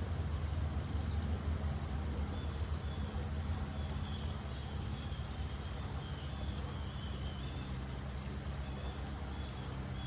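Steady low rumble of distant traffic, with faint high-pitched bird chirps wavering in from a couple of seconds in.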